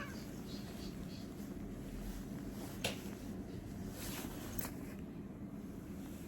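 Steady low background rumble with one sharp click about three seconds in, and two brief soft rustles a second or so later.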